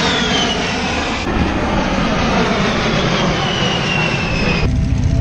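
A-10 Thunderbolt II's twin turbofan engines roaring and whining as the jet passes overhead, the high whine falling in pitch, twice over. Near the end the sound cuts suddenly to a low engine rumble.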